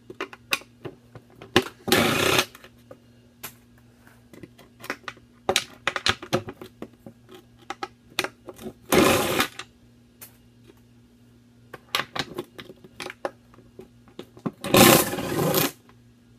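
A power drill with a nut-driver bit runs in three short bursts, the last the longest, spinning off the nuts that hold a skateboard's trucks. Between the bursts, small metal nuts, bolts and tools click and clink as they are handled and set down.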